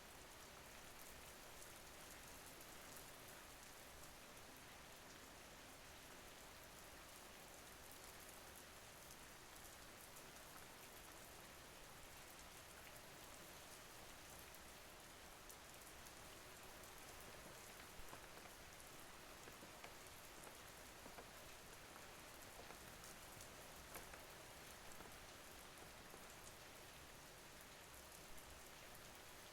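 Faint, steady rain: an even hiss of falling rain, with the odd louder drop now and then.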